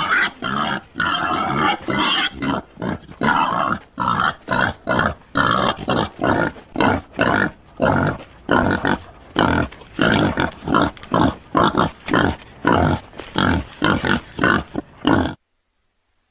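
Wild boar grunting in a long, rapid series of short grunts, about two or three a second, which stops abruptly near the end.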